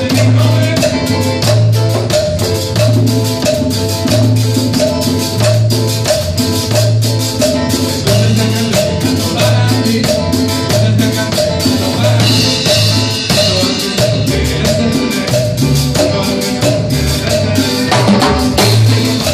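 Live cumbia band playing: a drum kit and a scraping, rattling percussion rhythm over a steady pulsing bass line, with a cymbal wash about two-thirds of the way through.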